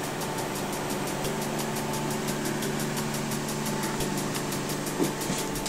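Desktop PC running, its cooling fans giving a steady whirring hum. There is a light knock about five seconds in.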